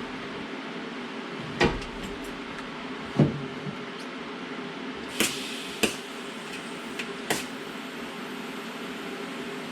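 Five short knocks and clunks, a second or two apart, from parts and tools being handled during work on a car, over a steady hum. The loudest, about three seconds in, rings briefly as it dies away.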